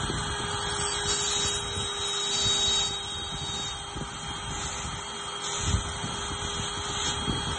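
CNC router spindle running with a steady whine while a small end mill cuts star outlines into a wooden cylinder turned on the rotary axis, with a single low thump about three-quarters of the way through.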